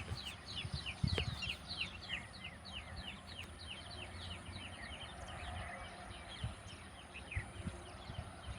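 Birds chirping: a quick run of short, down-slurred notes, several a second, over a faint low rumble.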